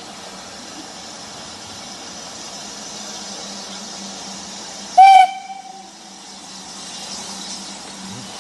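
A steam locomotive's whistle gives one short, loud blast about five seconds in, cutting off quickly with a brief fading ring. Under it runs a steady low hiss.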